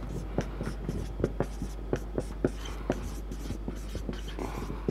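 Marker pen writing on a whiteboard: a quick, irregular run of short strokes and taps of the tip as letters are written.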